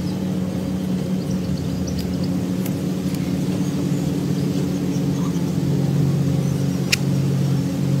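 Steady low mechanical hum made of several held low tones, like an engine running. A single sharp high click about seven seconds in.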